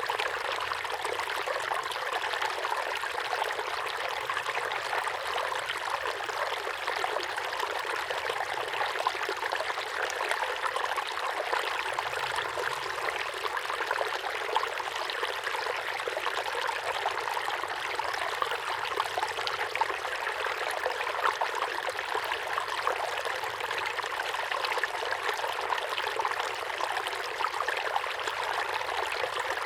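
A small waterfall pouring steadily into a pond: a continuous splashing, trickling rush of falling water.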